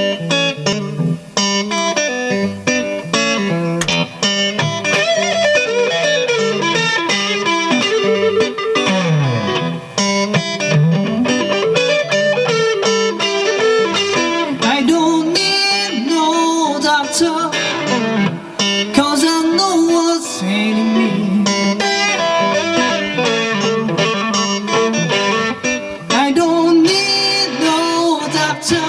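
Solo electric guitar, a Stratocaster-style, playing riffs with bent notes. A man's singing comes in near the end.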